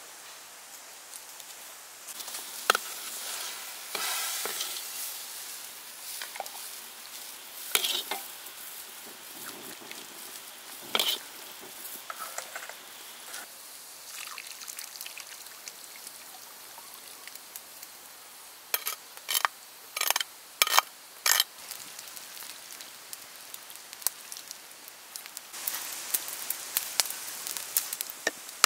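Cooking over a wood fire: a steady sizzling hiss with scattered sharp clicks and taps as a pot of seafood and noodles is handled and sauced. A quick run of five loud clicks comes about two-thirds of the way through.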